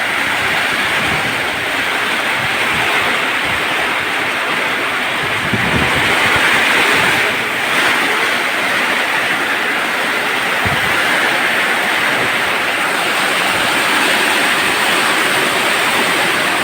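Storm of heavy rain and strong gusting wind: a loud, steady rushing hiss, with low rumbling buffets of wind on the microphone now and then.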